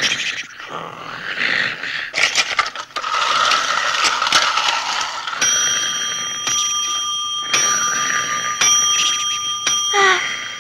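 Cartoon sound effects: a rough, noisy rasp in the first half, then from about halfway a wall clock striking about once a second over a steady bell-like ringing. Short falling slides in pitch come near the end.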